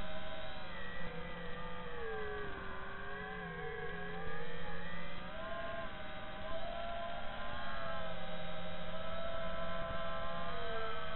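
FPV quadcopter's brushless motors and propellers whining, the pitch dipping a couple of seconds in, rising again, and dipping once more near the end as the throttle changes, with a steady low hum underneath. Heard through the drone's onboard camera microphone, thin and dull-topped.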